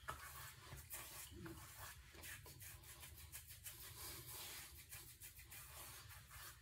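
Faint rubbing and rustling of hands massaging a full beard, cheeks and neck, a soft irregular scratch of skin on whiskers.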